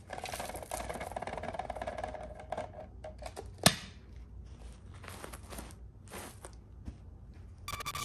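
Dry O-shaped cereal and powdery debris shaken out of a clear plastic container onto carpet, a soft rustling pour, followed by one sharp click about three and a half seconds in and a few brief scuffs.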